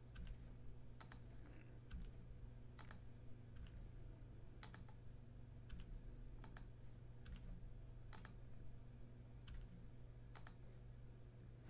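Faint computer keyboard and mouse clicks: single sharp taps spaced a second or two apart, over a low steady hum.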